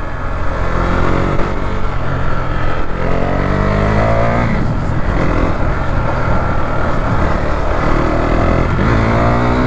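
KTM motorcycle engine pulling hard under acceleration: its pitch climbs through a gear, drops sharply at an upshift about four and a half seconds in, and climbs again near the end.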